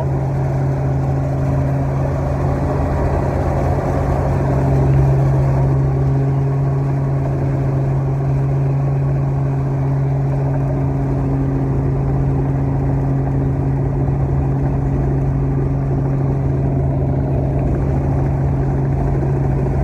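Small helicopter's engine and rotor heard from inside the cabin in flight: a steady, loud drone with a deep even hum.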